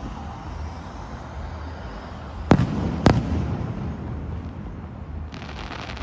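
Fireworks display: a continuous low rumble of bursting shells, with two sharp, loud bangs about half a second apart a little past two and a half seconds in.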